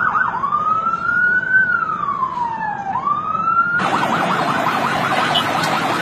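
American ambulance electronic siren going from a fast yelp into a slow wail that rises, falls and rises again. About four seconds in it cuts to a different ambulance siren, a fast warble over traffic noise, from a Chinese ambulance.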